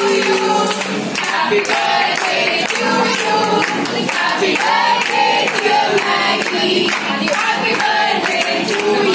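A group of young women singing together while they clap in rhythm.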